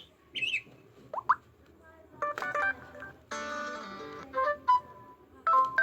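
Smartphone notification tones previewed one after another from the phone's speaker: about half a dozen short alerts, a high chirp, quick rising blips, a few chimes and a brief jingle, each stopping before the next begins.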